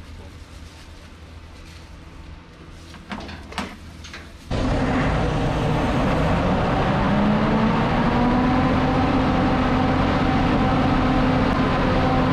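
Emergency standby generator's diesel engine starting up suddenly about four seconds in, after a couple of clicks, then running steadily, its pitch rising for a couple of seconds as it comes up to speed. A test start on the newly fitted pair of 12 V starting batteries wired in series for 24 V.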